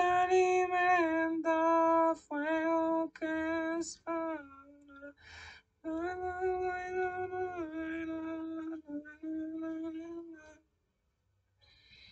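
A woman singing a slow melody in long held notes that change pitch in steps, with a quick breath between phrases about five seconds in; the singing stops about ten and a half seconds in.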